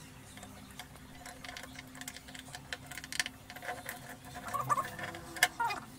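Hand screwdriver turning small screws through a metal caster plate into a wooden cabinet base, with scattered light clicks and ticks. The clicking gets busier toward the end, with a couple of short squeaks and one sharp click.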